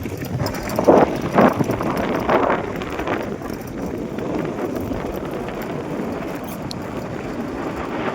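Wind buffeting the microphone during a ride, mixed with rumbling vehicle and road noise, with a few stronger gusts in the first three seconds.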